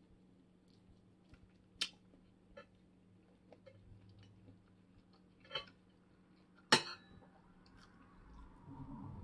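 Someone eating shrimp with their fingers: quiet chewing and mouth sounds, broken by a few sharp clicks, the loudest about seven seconds in.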